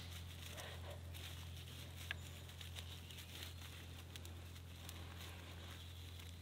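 Faint crinkling and light crackling of a bundle of fine, dry twigs being pulled apart and rolled between the hands, with a small snap about two seconds in, over a steady low hum.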